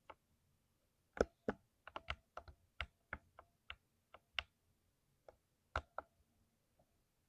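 Typing on a lubed mechanical keyboard: a quick irregular run of key presses about a second in, thinning to a few scattered keystrokes before stopping near the end.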